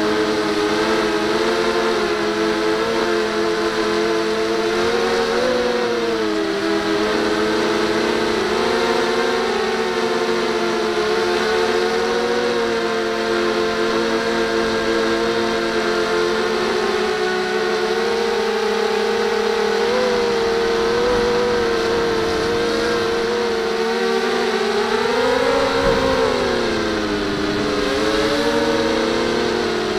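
The six brushless motors and propellers of a DIY 250 mm Y6 multirotor humming steadily in flight, heard up close from the craft. Their pitch shifts together with the throttle, with a rise and fall about five seconds in and a larger swing a little before the end.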